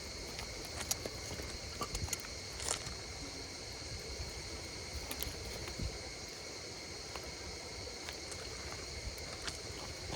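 Wood fire crackling with scattered sharp pops, over a steady high-pitched chorus of insects singing.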